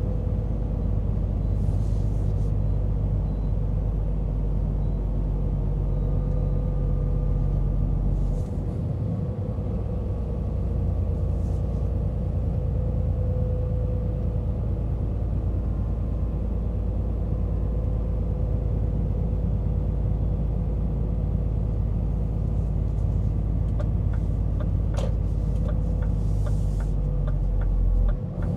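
Heavy diesel timber truck engine running steadily while driving, a low drone whose tone shifts about eight seconds in, as at a gear change. A run of light, evenly spaced ticks comes in near the end.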